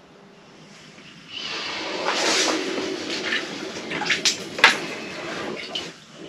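Water splashing and sloshing in an ice-fishing hole, starting a little over a second in and stopping near the end, with two sharp clicks in the middle of it.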